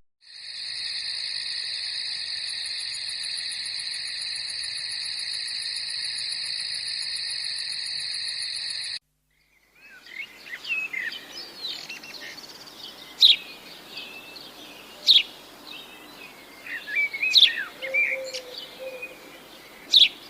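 A steady, high, pulsing buzz for about nine seconds that cuts off suddenly. After a brief gap, several wild birds chirp and call, with a few sharp, loud chirps standing out.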